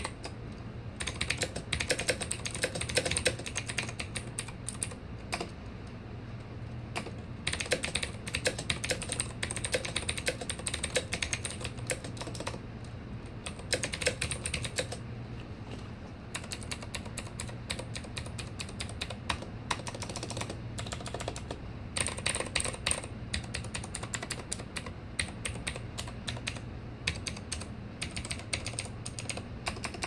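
Dataluxxx keyboard being typed on: fast runs of key clicks broken by short pauses every few seconds.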